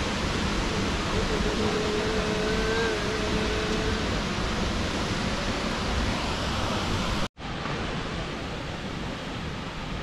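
Steady rushing roar of the Ouzoud waterfalls' falling water. It breaks off for an instant about seven seconds in, then goes on a little quieter and duller.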